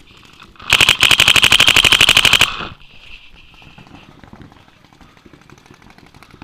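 Dye DM12 electronic paintball marker firing a rapid string of shots, roughly a dozen a second for about two seconds, followed by fainter scattered shots.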